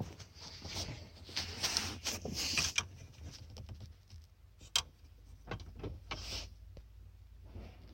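Scattered handling and work noises: rustling and scraping in the first few seconds, a sharp click a little under five seconds in, then a few light ticks.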